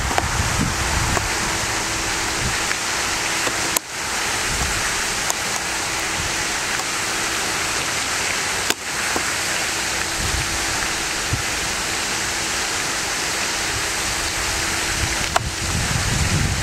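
Steady loud rushing noise with low buffeting that comes and goes, under a faint steady hum, broken by a few sharp clicks.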